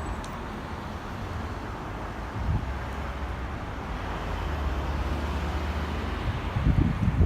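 Outdoor wind with a low, steady traffic rumble. Near the end, wind gusts begin buffeting the microphone in loud low thumps.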